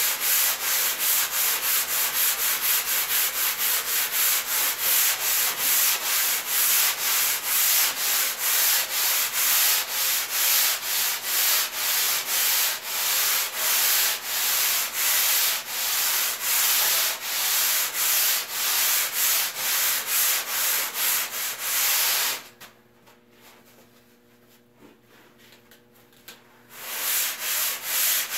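A hand sanding block rubbing back and forth over a surfboard blank, a few quick hissing strokes a second, as the bottom channels are sanded in. The strokes stop for about four seconds near the end, leaving only a faint hum, then start again.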